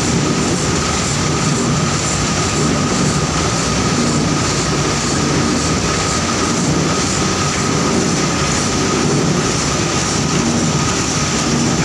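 Sugar factory cane-milling machinery running: a loud, steady mechanical din with a constant high whine through it.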